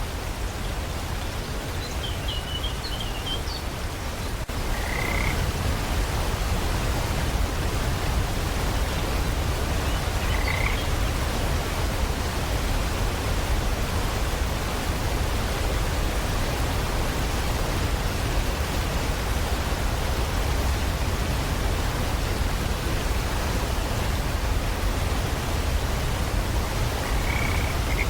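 Steady rain, a dense even hiss that swells slightly a few seconds in. A few short high chirping calls sound over it: a quick run of notes early, then single brief calls around five and ten seconds in and near the end.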